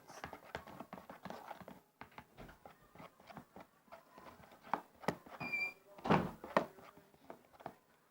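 Spoon stirring glue and borax water in a bowl: irregular clicks and knocks of the spoon against the bowl, with a louder knock about six seconds in and a brief high squeak just before it. The mixture is starting to thicken into slime.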